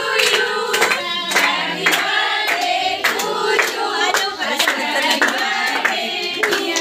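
A group of young women singing together, with hands clapping along in a quick steady rhythm.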